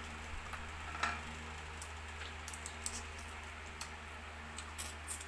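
Eating sounds: scattered small clicks and ticks as shrimp and mussels are peeled and picked at by hand over plates, the clearest click about a second in and a few close together near the end, over a low steady hum.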